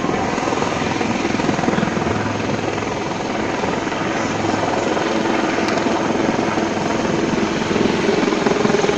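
Navy helicopters flying low overhead. Their rotors make a fast, steady chop that grows a little louder near the end.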